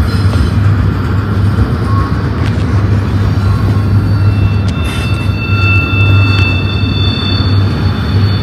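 Double-stack intermodal freight train's well cars rolling past: a steady, loud rumble of steel wheels on rail. From about halfway through, thin high-pitched squeals from the wheels come in as the cars take the curve.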